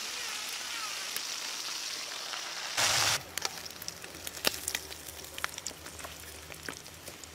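Tiny frogs deep-frying in a wok of hot oil: a steady sizzling hiss, then about three seconds in a brief louder hiss. After it, quieter oil crackling with scattered sharp clicks of metal tongs against the wok.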